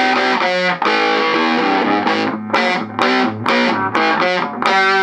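Electric guitar, a Les Paul, played through a 5F1 Champ-style tweed tube amp with its 8-inch speaker, overdriven and distorted. It plays a rock riff of short chopped chords and ends on a chord held ringing near the end.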